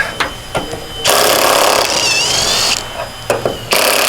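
Cut-off wheel cutting through seized bed bolts in two bursts of about a second and a half each, its high whine dipping under load, with a few knocks between the cuts.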